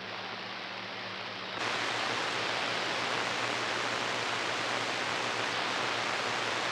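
CB radio receiver hissing with band static between transmissions, over a faint steady hum. About a second and a half in, the static jumps louder and brighter.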